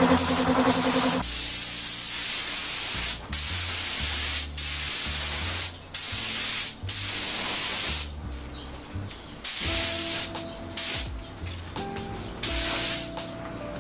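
Compressed-air spray gun spraying clear coat onto plastic scooter body panels, hissing in repeated bursts of about a second each as the trigger is pulled and released. The bursts are loud for the first eight seconds, then shorter and weaker.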